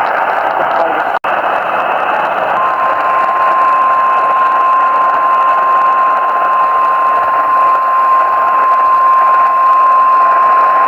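Weather radio receiver hissing with static, cutting out for an instant about a second in, then the NOAA Weather Radio warning alarm tone, one steady single-pitch beep, starts a couple of seconds in and holds on: the signal that a new warning is about to be read.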